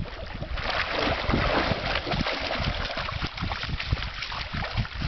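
Water splashing and sloshing as a dog wades through shallow river water. Wind rumbles on the microphone underneath.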